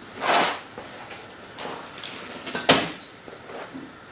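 Clutter and broken scenery being shifted on a model railway baseboard: a scraping sweep about half a second long at the start, light rustling, then a sharp knock a little before three seconds in as something is set down.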